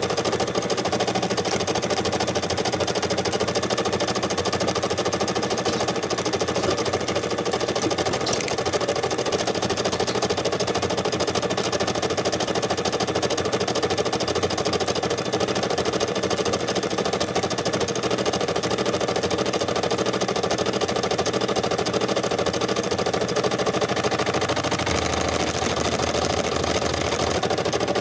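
Brother SE600 embroidery machine stitching steadily: a fast, even rattle of needle strokes. A lower hum joins in for a couple of seconds near the end.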